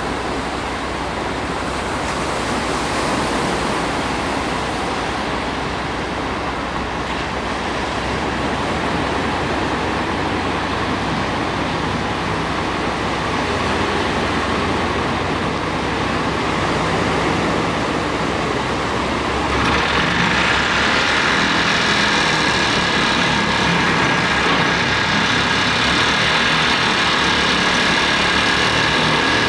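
Hitachi excavator's diesel engine running over the wash of breaking surf. About two-thirds of the way in the sound gets louder and a steady high hum with several tones sets in as the vibratory pile driver on its arm works a wooden pile.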